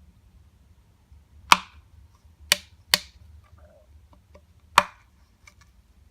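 A hole reamer punching holes through a thin plastic enclosure wall: four sharp snaps as the plastic gives, about a second apart, the second and third close together, with faint small clicks between.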